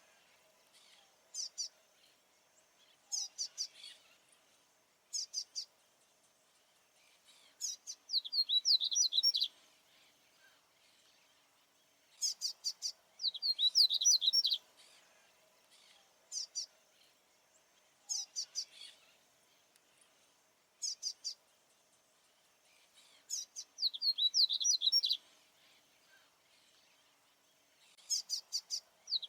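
Male papa-capim baianinho seedeater singing: short phrases of rapid, high, chirping notes repeated every two to three seconds, some brief and some about a second and a half long. This is the male's territorial song.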